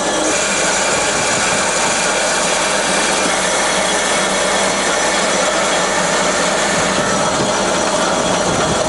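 Cosen C-320NC double-column bandsaw in its automatic cycle, the blade cutting steadily through a block of wood. Dense, even cutting and machine noise with faint steady humming tones in it.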